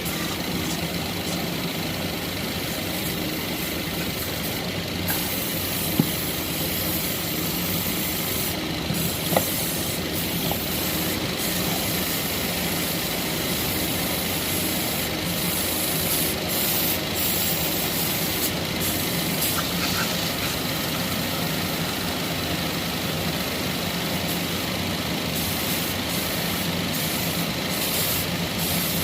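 A steady engine drone, with two short sharp clicks about six and nine seconds in.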